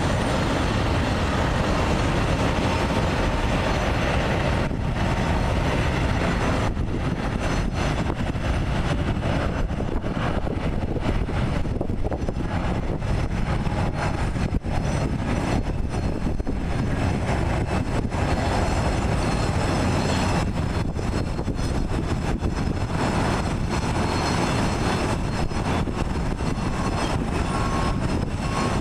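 Jet airliner engines with a steady, loud rumble that neither clearly builds nor fades.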